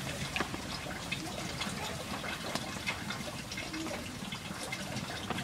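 Hot cooking oil sizzling steadily in a frying pan, with frequent small crackles and pops, as fried pakoras are lifted from it.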